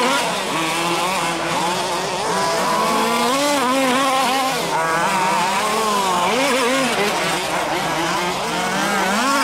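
Several large-scale RC off-road buggies racing, their small petrol engines revving up and easing off in overlapping, wavering pitches.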